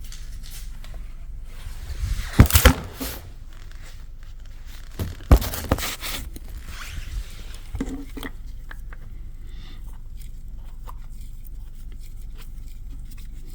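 A few short knocks and scrapes from parts being handled: a cluster about two seconds in, another about five seconds in, and a lighter knock near eight seconds, over a faint steady hum.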